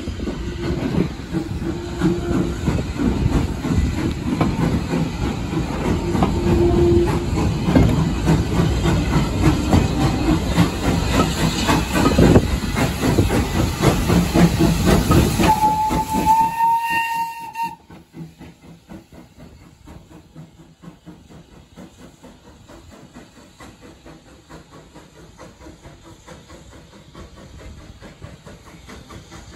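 Steam-hauled train passing close by with heavy steam hiss and rail noise, and a short steam whistle just past halfway. The sound then drops to a faint steam hiss as a small tank engine approaches slowly.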